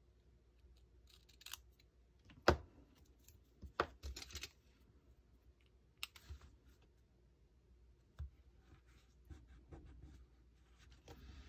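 Small scissors snipping a sticker strip and metal tweezers clicking and tapping as stickers are placed on a paper journal page: scattered light clicks, the sharpest about two and a half seconds in, with soft paper rustling near the end.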